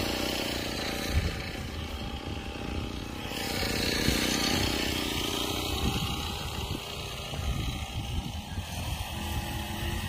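Backpack brush cutter's small engine running, spinning a metal cutting blade, its sound swelling and easing a little.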